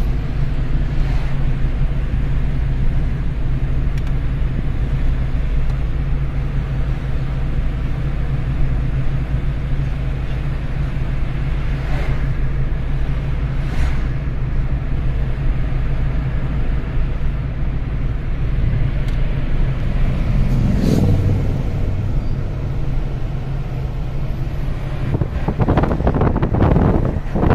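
Car cabin noise while driving: a steady engine and road rumble heard from inside the car. Near the end, wind buffets the microphone.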